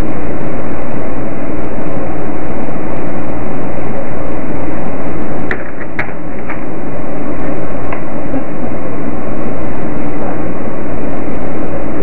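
Loud steady hiss and low hum of a security camera's microphone, with a few sharp clicks about halfway through and one more a couple of seconds later, which the uploader takes for the front door's knob turning just before the door swings open.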